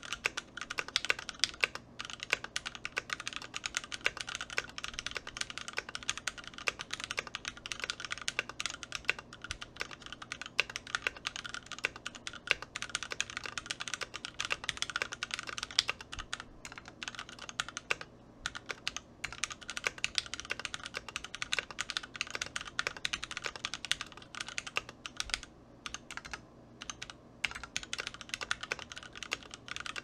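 Fast, continuous typing on a Gingham through-hole mechanical keyboard fitted with lubed Gateron Yellow KS3 linear switches, an FR4 plate and Tai-hao ABS keycaps: a dense clatter of keystrokes, broken by a few short pauses in the last third.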